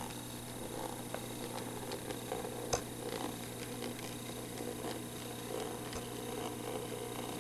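N scale model steam locomotive, a Micro-Ace 2-8-0 rebuilt as an 0-8-0, running past with its freight cars: a steady low purr from its small motor and wheels on the track, with scattered light clicks and one sharper click about three seconds in.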